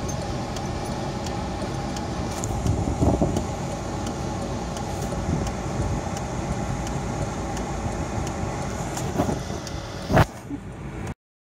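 Steady running noise of a car heard from inside its cabin as it is towed slowly out of a muddy field by a four-wheel drive: a low rumble with a steady hum and a few faint ticks. A sharp knock comes about ten seconds in, and the sound then cuts off suddenly.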